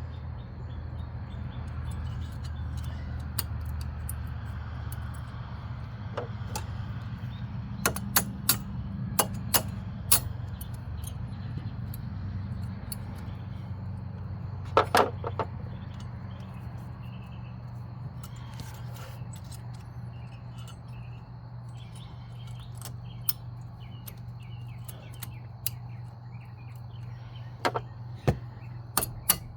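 Scattered light metal clicks and clinks of brake pads, clips and tools being handled on a front disc brake, over a steady low hum. The clicks come in clusters: a handful about eight to ten seconds in, a sharper pair around fifteen seconds, and a run of them near the end.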